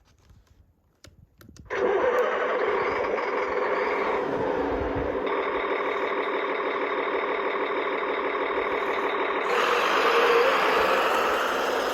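Radio-controlled Kyosho Blizzard tracked model: a few faint clicks, then its drive starts up suddenly about two seconds in and keeps running with a steady mechanical whir. It grows louder near the end.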